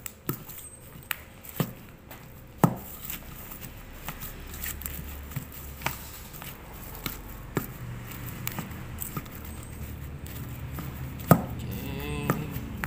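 Fried potato chunks being pounded to a mash in a stainless steel bowl: irregular knocks of the pounder on the potatoes and bowl, with two sharp, much louder strikes, one about two and a half seconds in and one near the end.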